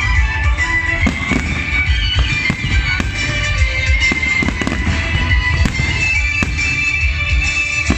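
Fireworks display: aerial shells bursting one after another in a steady run of booms and cracks, with music playing alongside.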